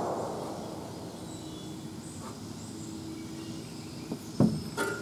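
Faint steady outdoor background noise, with a couple of light knocks about four and a half seconds in.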